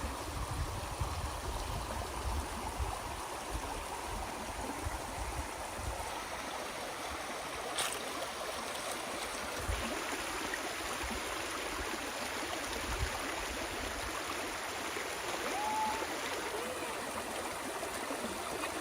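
Steady rushing of water from a waterfall and its stream, with one sharp click about eight seconds in.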